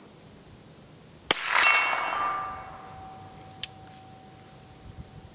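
A single shot from a Little Badger .22 long rifle, followed about a third of a second later by the AR450 steel gong clanging downrange and ringing, the ring fading over a few seconds. A light click follows a couple of seconds later.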